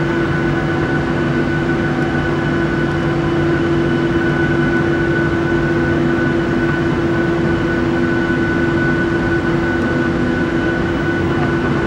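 Airliner's turbofan engines running at taxi power, heard inside the cabin as the plane rolls slowly along the taxiway: a steady drone with fixed whining tones.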